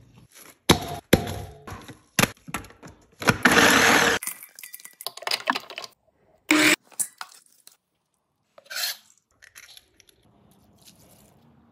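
Kitchen food-prep sounds: a run of sharp knocks and clicks, with a loud noisy burst lasting about a second that cuts off suddenly about four seconds in. A few shorter bursts follow, then faint noise.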